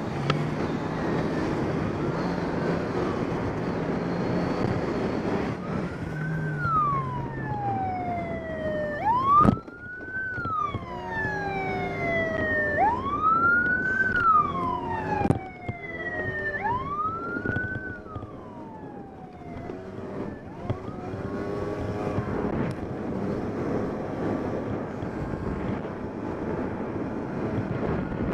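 Police siren wailing in four or five rising-and-falling sweeps from about six seconds in, dying away after about twenty seconds. Beneath it a Booster 50cc scooter engine keeps running, with wind on the microphone. A sharp knock comes about nine seconds in.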